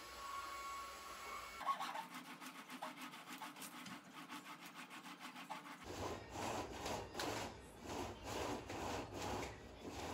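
Venetian blind being raised by its cord in quick hand-over-hand pulls, the slats rattling and rubbing about three times a second. Before it comes a fainter, faster run of rhythmic rasping.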